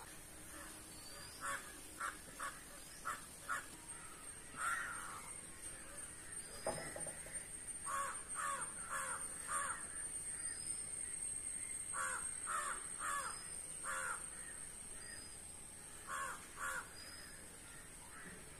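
Crows cawing in short series of two to four calls, with pauses between the series. A faint steady high whine and small high chirps run underneath.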